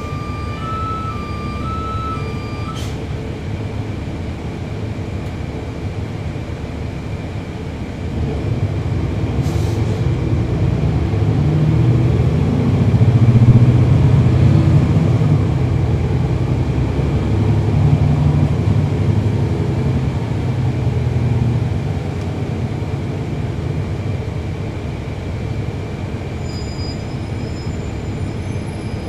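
Cummins ISL9 diesel engine of a NABI transit bus heard from on board. It runs steadily at first, then grows louder under load from about eight seconds in as the bus accelerates, is loudest around halfway, and eases back after about twenty-two seconds. A short run of electronic beeps sounds in the first few seconds.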